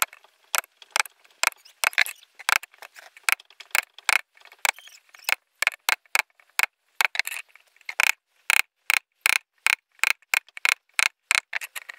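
A blue-handled chisel struck again and again with a rough chunk of wood used as a mallet, its blade cutting into a small wooden board. The knocks are sharp and come about two to three a second, unevenly spaced.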